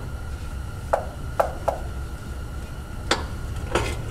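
A few sharp clicks and taps from an oil pan bolt and the tool on it as the bolt is worked loose. There are three quick clicks in the first two seconds and two more near the end, over a steady low hum.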